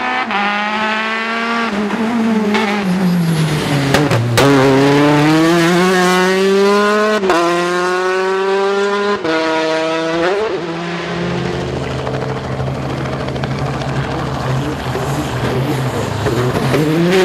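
Citroën DS3 rally cars' engines revving hard under acceleration, the pitch climbing and dropping with each upshift, with a few sharp cracks around the shifts. In the second half an engine runs at a steadier pitch.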